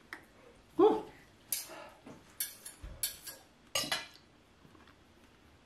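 Knife and fork clinking and scraping against a dinner plate, four short strokes about a second apart.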